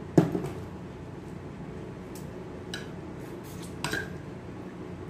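A clear plastic bowl of boiled crabs set down on a table with one sharp knock, then a couple of small clicks and taps from hands working at a plate of rice and crab.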